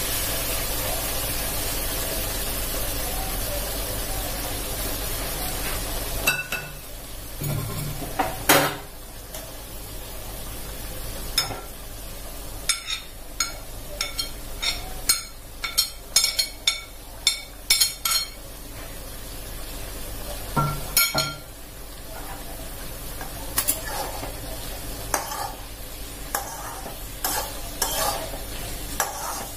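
Hot water hitting a hot wok of chicken and banana-stem curry, hissing and sizzling steadily for about the first six seconds. Then a metal ladle clinks and scrapes against the wok again and again as the curry is stirred, with a lower sizzle beneath.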